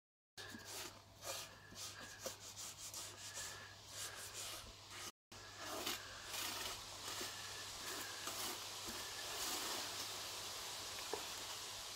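Paper towel rubbing back and forth over a ridged griddle hotplate, wiping off cooking grease: short scratchy strokes at first, turning to a steadier wiping hiss about halfway through. A low hum runs underneath, and the sound drops out briefly at the start and about five seconds in.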